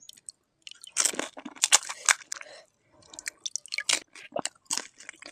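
Crisp panipuri shells being bitten and chewed close to the microphone, with wet squishing from the spiced water inside. A dense run of crunching starts about a second in, then sparser crunches follow.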